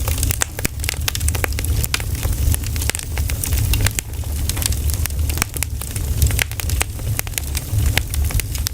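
Pine cones burning in a campfire, crackling with many irregular sharp pops over a low steady rumble.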